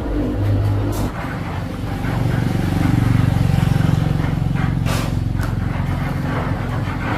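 Small motorcycle-type engine running with a steady low drone, picking up and getting louder about two seconds in, then easing back a little. A few brief clicks or knocks come through near the start and about two thirds of the way in.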